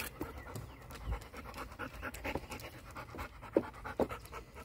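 Dog panting in quick, steady breaths, with a couple of short, sharper sounds near the end.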